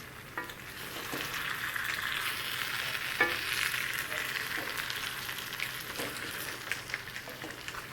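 Chicken pieces in masala sizzling steadily in an open pan on low flame as they are stirred and turned, with a few light clicks of the utensil against the pan.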